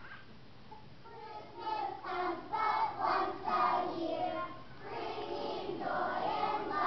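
A group of young children singing together in unison, starting about a second in.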